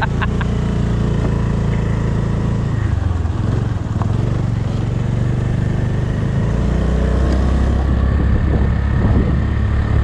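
Honda scooter's small single-cylinder four-stroke engine running as it is ridden; the engine note dips about three seconds in and then picks up again. A heavier low rumble grows over the last few seconds.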